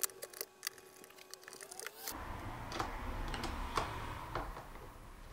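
Light clicks and taps of hard plastic as the two halves of a Kranzle M2000 pressure-washer trigger gun are handled and a screwdriver works the housing screws. A low background rumble comes in about two seconds in.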